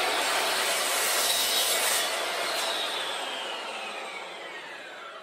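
Chop saw with a regular 60-tooth blade cutting through a metal trolling-motor support pole, a steady grinding cut. About two seconds in the cut ends, and the blade's whine falls steadily as it spins down.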